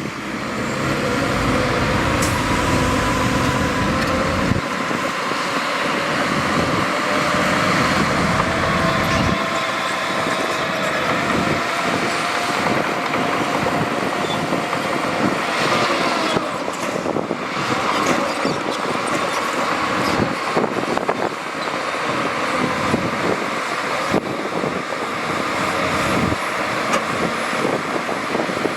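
Heavy diesel earthmoving machinery running and working, a continuous engine noise with a whining tone that drifts slightly in pitch. The deep low rumble is heavier for the first few seconds.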